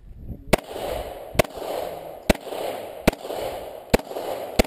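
Six Glock pistol shots, a little under a second apart, each followed by a brief echo, as the shooter fires on a string of targets.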